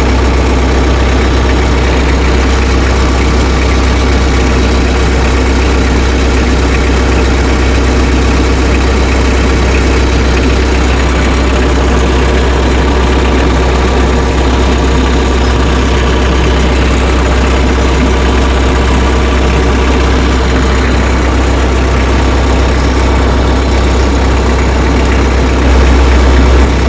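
Tractor engine idling steadily, briefly a little louder near the end. A few faint clicks sound over it.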